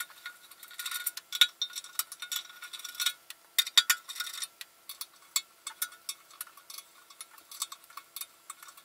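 Light metallic clicks and clinks as the filler-cap assembly of a motorcycle's metal fuel tank is worked loose and lifted out. They come irregularly, thick over the first half and sparser after.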